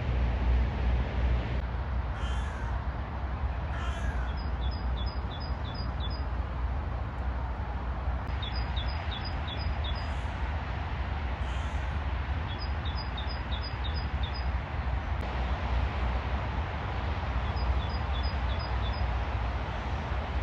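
Rainy city street ambience: a steady low traffic rumble and an even hiss. A bird's short, high, rapid chattering call comes four times, each a quick series of about six notes.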